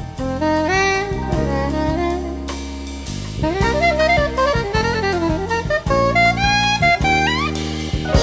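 Jazz recording: a saxophone plays a moving melodic line with pitch slides over bass and drum kit.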